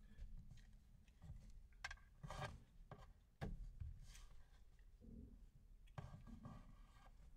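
Faint rubbing and rustling of handling, with a few short soft clicks and knocks scattered through it.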